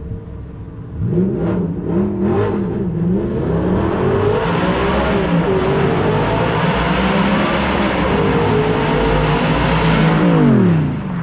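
A performance car engine blipping the throttle a couple of times, then accelerating hard, its pitch climbing with two brief dips like upshifts. It is loudest near the end, then drops quickly in pitch and volume as it lifts off and passes.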